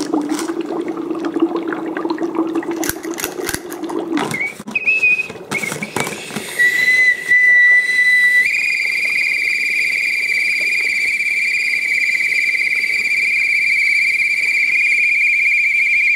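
Dry ice fizzing and bubbling in hot water, with clicks as a plastic lid is handled. From about four seconds in, a plastic whistle set into the lid is blown by the carbon dioxide gas escaping the container. After a brief warble it settles at about six and a half seconds into a loud, steady, shrill whistle that steps slightly higher near eight and a half seconds and holds.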